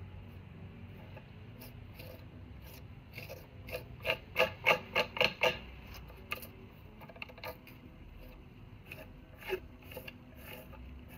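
Metal palette knife scraping and smoothing wet chalk-and-glue gesso on a wooden panel. About four seconds in comes a quick run of about seven sharp scraping clicks, with a few scattered ticks afterwards.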